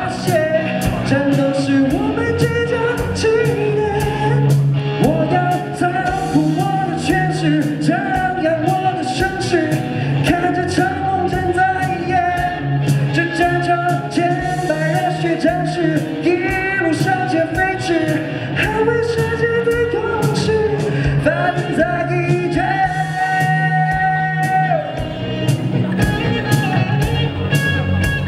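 A live rock band playing: electric guitars, bass guitar and an electronic drum kit keeping a steady beat, with a male lead voice singing over them.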